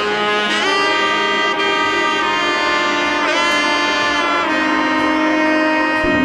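Background music: a lead instrument playing long held notes, with a brief pitch bend about three seconds in.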